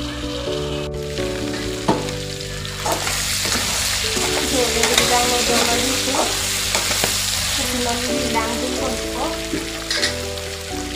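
Meat frying and sizzling in an aluminium wok while a metal spoon stirs it. The sizzle grows louder about three seconds in, with light scrapes and clicks from the spoon, over background music.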